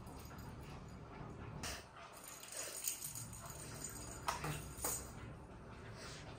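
Kitten batting a plastic ball-track cat toy: a few light clicks and rattles of the plastic, the sharpest about three seconds in and twice near the five-second mark.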